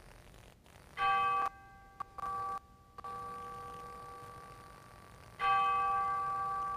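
A bell struck twice, about a second in and again near the end, each strike ringing on and slowly fading. The ringing briefly cuts out after the first strike.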